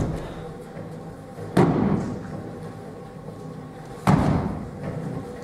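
Bodies hitting mats in aikido breakfalls as partners are thrown. There are two heavy thuds about two and a half seconds apart and a lighter one at the very start.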